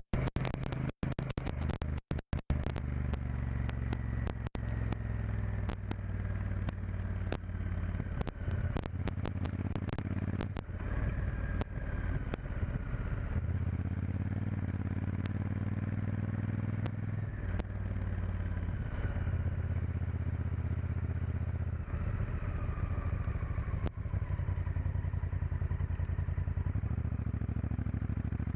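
Honda Varadero XL1000's V-twin engine running on the road, its pitch rising and falling several times with throttle and gear changes. The sound drops out briefly a few times in the first two seconds.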